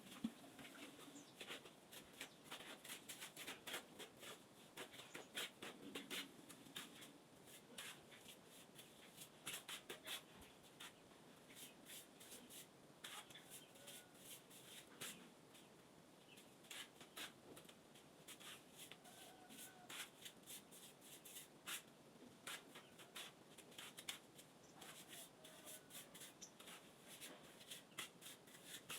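Faint, irregular clicking and scratching, many small sharp sounds at no steady rhythm.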